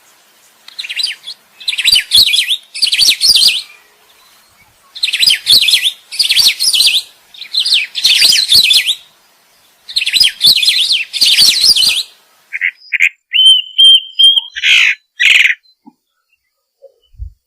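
Songbird song from a masteran tutor recording: dense, rapid, high-pitched phrases about a second long, repeated in groups, then a different pattern with a held whistle and a few short sharp notes, ending in a brief gap.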